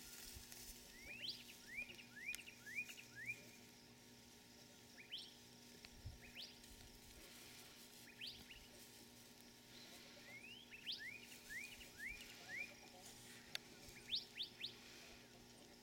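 Faint bird calls: bouts of short, quickly rising chirps, several in a row, repeating every few seconds.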